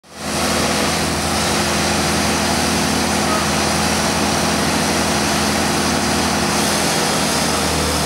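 Truck engine running steadily at constant speed, under an even hiss of noise.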